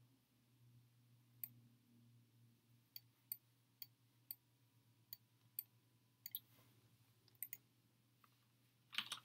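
Faint, scattered clicks of a computer mouse, about a dozen spread irregularly, with a louder cluster near the end, over a steady low hum.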